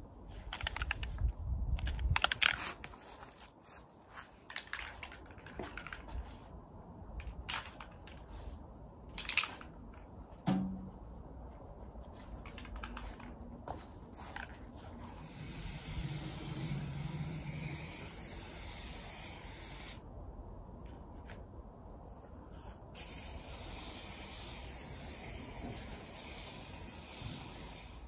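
Aerosol spray paint can spraying in two long, even hisses, the first starting about halfway through and the second a few seconds later, as a second coat of paint goes onto a metal barrel barbecue grill. Before the spraying, a scatter of clicks and knocks from handling the can.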